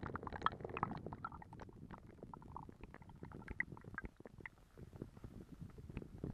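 Muffled underwater sound of a stream running over a gravel bed, picked up by a submerged camera: a low rumble of flowing water with scattered small clicks and a brief gurgling near the start.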